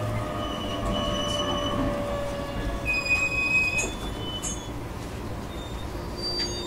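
Inside a JR East E127-100 series electric train as it slows: the Toyo Denki GTO VVVF inverter and traction motors whine in steady tones that fall slowly in pitch, with several brief high-pitched squeals about a second in and again around three to four seconds in.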